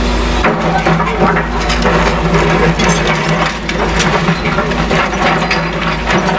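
Caterpillar excavator's diesel engine running steadily. From about half a second in, a dense run of cracking, crunching and clattering of broken demolition rubble joins it as the machine works.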